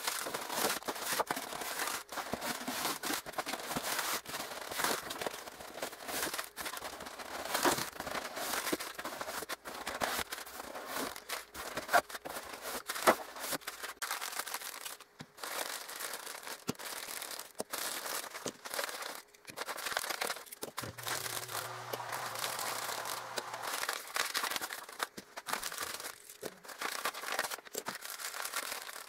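Newspaper packing paper crumpling and rustling continuously as it is pulled off diecast toy trains. A few sharper knocks stand out about halfway through.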